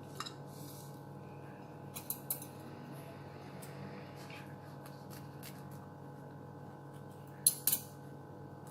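Short, sharp kitchen clicks and snips in three small groups, the loudest pair near the end, over a low steady hum.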